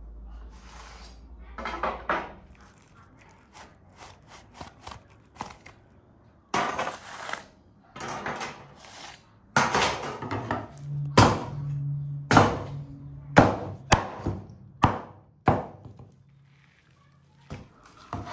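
Sharp knocks and thuds of a knife or cleaver on a wooden cutting board as a roasted lamb rib rack is cut apart, with louder knocks about once a second in the second half.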